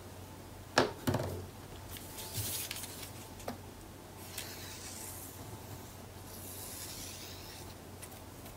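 Quiet handling of paper craft tools on a cutting mat: a sharp tap about a second in, with a softer one just after, as a tool is set down. Then a soft, scratchy rubbing as the nozzle of a liquid glue bottle is drawn along a narrow paper strip.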